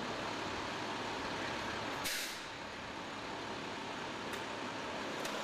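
Large truck's engine running steadily, with one short hiss of its air brakes about two seconds in.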